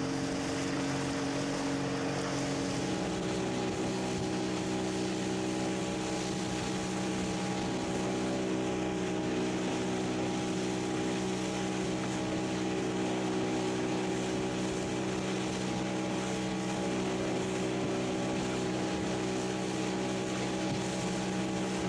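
Motorboat engine running steadily under way, over a constant hiss of water rushing past the hull. The engine's pitch shifts slightly about three seconds in.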